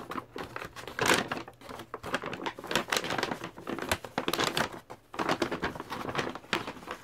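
Plastic packaging crinkling and rustling as bubble wrap and a metallic foil bag are pulled out and handled by hand, in irregular crackly rustles.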